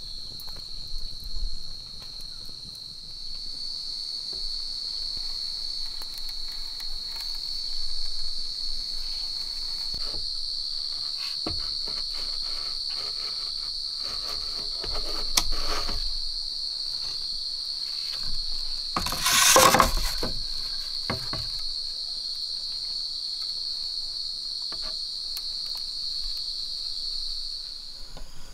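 Insects droning steadily at a high pitch, cutting off near the end. Under the drone a knife scrapes and knocks against green bamboo tubes, with one louder rasping cut about twenty seconds in.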